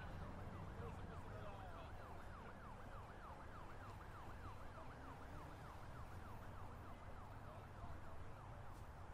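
Faint emergency-vehicle siren in a fast yelp, its pitch sweeping up and down about four times a second, over a low steady street rumble.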